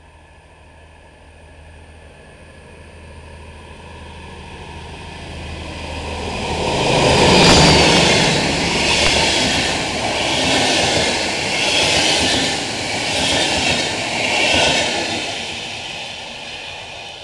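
Passenger train approaching and passing close by on the rails: the rumble builds to a peak about seven or eight seconds in as the front of the train goes past, then swells regularly about every second and a half as the coaches go by, and fades near the end as the train moves away.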